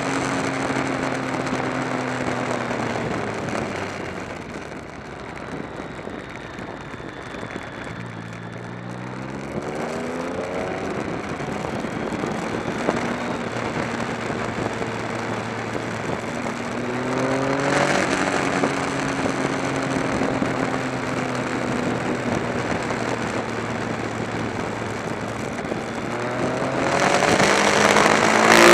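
Motorcycle engine and wind rush heard from a camera on the bike while riding a mountain pass. The engine cruises steadily, eases off a few seconds in, then climbs in pitch as it accelerates about nine seconds in and again around seventeen seconds. Near the end it rises and gets louder.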